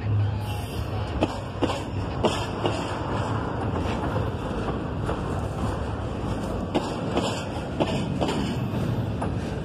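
Double-stack intermodal well cars rolling past: a steady rumble of steel wheels on rail, broken by irregular sharp clacks.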